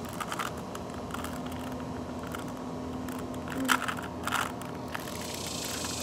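A Rubik's cube being turned by hand: its plastic layers click and clack at irregular moments, with two louder clacks a little past the middle, over a faint steady background hum.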